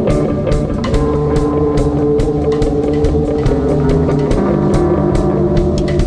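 Rock music played by a band with guitars, bass and a drum kit: long held guitar notes over a bass line, with the drums keeping a steady beat.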